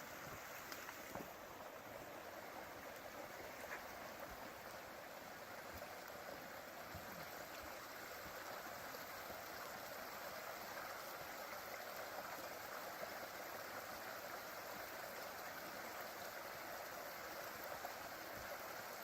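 Steady rush of a stream flowing, heard faintly as an even wash of water noise.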